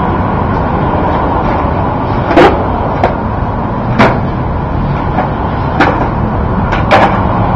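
Skateboard knocking on concrete during flatland tricks: about five sharp clacks of the deck and trucks striking the ground, spread over several seconds, over a steady rushing noise.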